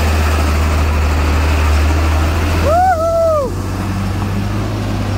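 Isuzu truck's diesel engine running steadily under load as the truck works its way out of deep mud. About three seconds in, a short pitched sound rises and then falls over it.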